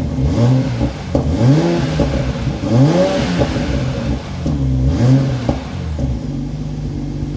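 Toyota A90 Supra's engine and exhaust revved four times while stationary, the pitch rising and falling with each rev, then settling back to a steady idle near the end.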